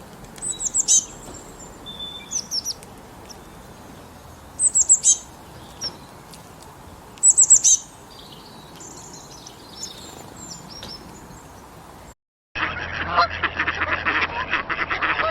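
Small bird calling in three short bursts of high, quickly falling notes, spaced a few seconds apart, with fainter calls between. About 12 seconds in, the sound cuts out briefly and gives way to a louder, dense, rapid chatter of many birds.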